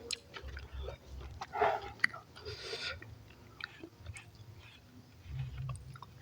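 Close-miked chewing and mouth noises of a person eating, with scattered small clicks and two short, louder noisy bursts about one and a half and two and a half seconds in.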